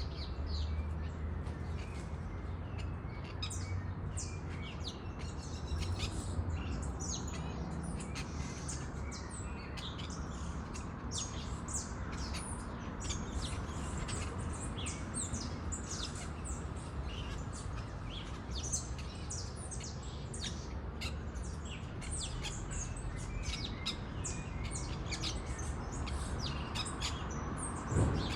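A flock of parakeets chirping continuously, many short high chirps overlapping one another, over a steady low rumble.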